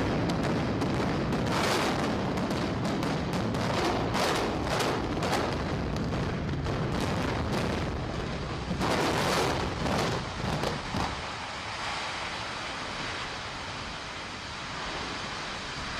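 Explosive demolition charges going off in a rapid string of sharp cracks and bangs, loudest around nine seconds in, as a 31-storey concrete tower is imploded. After about eleven seconds the charges stop, leaving a steady rumble from the collapse.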